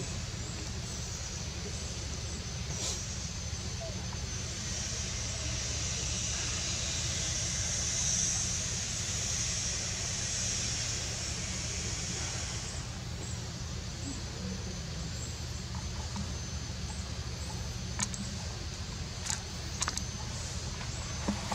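Outdoor forest ambience: a steady high-pitched insect drone that swells for several seconds in the middle, over a low steady hum. A few faint clicks come near the end.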